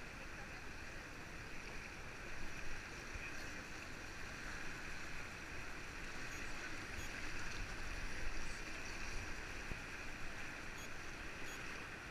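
Fast river water rushing around an inflatable whitewater raft, a steady wash of noise with no break.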